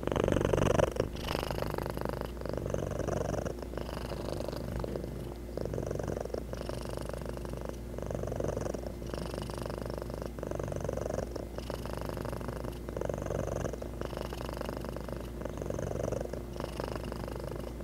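Domestic cat purring steadily, the sound swelling and ebbing with each in and out breath about every one and a half seconds.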